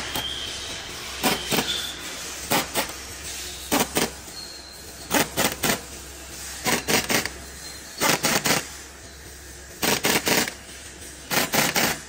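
Pneumatic impact wrench hammering in short bursts on bolts in a Komatsu SA6D125 engine block: groups of one to three quick rattling bursts, repeating about every second or so, over a low steady hum.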